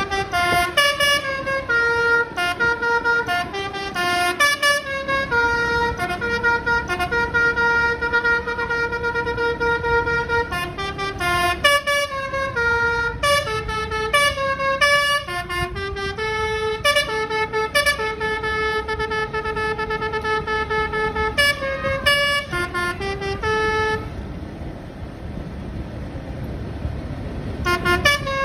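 A bus's telolet musical air horn playing a melody of stepped, held notes. It breaks off about four seconds before the end, leaving a few seconds of steady background noise, and then starts again.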